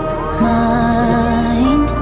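Background music: a slow song with long held notes over a steady low bass.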